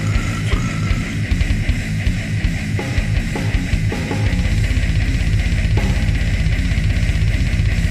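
Death metal recording: distorted electric guitars over a drum kit. About four seconds in, the drumming turns into a fast, even, continuous pattern.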